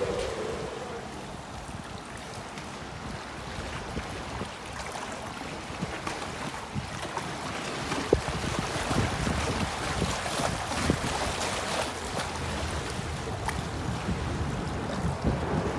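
Steady rush of river water against shore rocks with wind on the microphone, growing a little louder after about five seconds, with a few sharp clicks later on. A boat's outboard motor fades out in the first moment.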